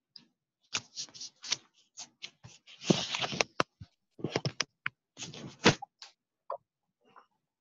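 A quick, irregular run of sharp clicks and rustles, with a longer scraping rustle about three seconds in, then a few fainter ticks near the end.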